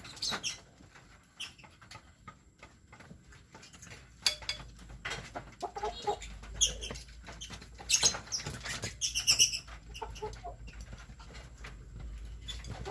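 Kampung chickens clucking and calling, with several short high calls in quick clusters around the middle, among scattered light knocks and rustling.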